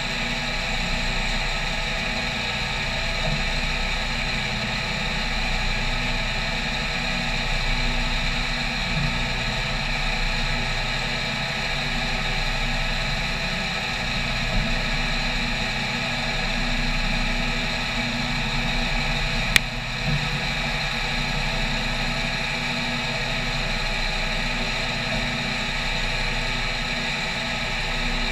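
CNC mill's spindle and end mill cutting an aluminium plate on a 2D adaptive clearing toolpath: a steady whine with several high tones held throughout. One sharp click about twenty seconds in.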